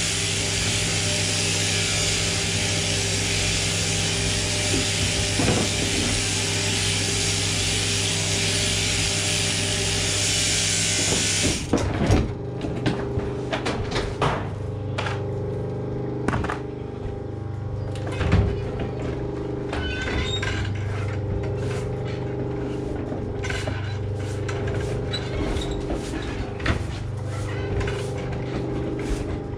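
Electric sheep-shearing plant running with a steady hum from the overhead gear and a high buzz from the handpiece. The buzz stops suddenly about twelve seconds in, leaving the hum with scattered knocks and clatter.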